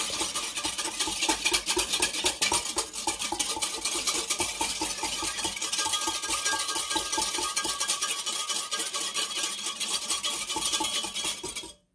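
Wire whisk beating yeast, salt and cold water in a glass measuring jug, the wires clinking against the glass in a fast, steady rhythm. It cuts off abruptly just before the end.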